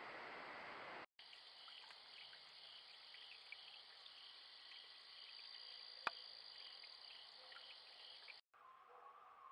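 Faint hiss, then after a short dropout a steady chorus of crickets and other night insects, with one sharp click about six seconds in. The chorus cuts off near the end.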